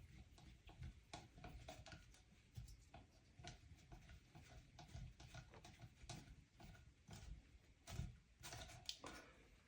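Faint, scattered clicks and light knocks of small screws and a circuit board being handled.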